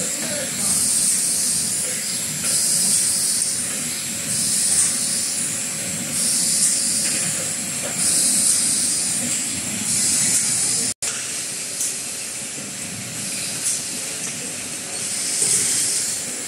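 A 3-in-1 bottle rinsing, filling and capping machine running: a steady mechanical rumble under high hissing that swells and fades about once a second. The sound cuts out for an instant about eleven seconds in.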